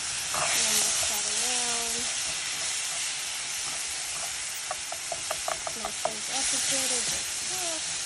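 Rice, onions and freshly added diced tomatoes sizzling in hot olive oil in a pot while being stirred. Near the middle comes a quick run of clicks from the stirring utensil against the pot.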